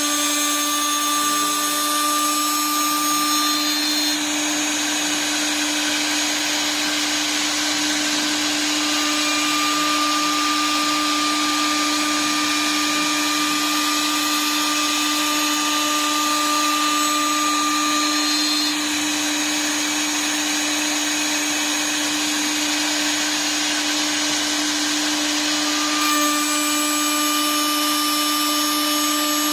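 The router spindle of a CNC wood lathe running steadily, with a constant mid-pitched whine and an even hiss over it.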